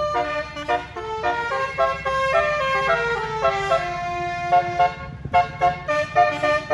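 Basuri telolet horn playing a fast melody of stepped, multi-note toots over a steady low rumble, breaking off briefly about five seconds in before a few short, sharp blasts.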